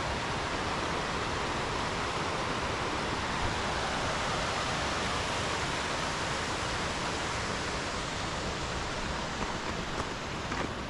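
Steady rush of water from Bear Creek, an even hiss with no rhythm. A few faint ticks come near the end.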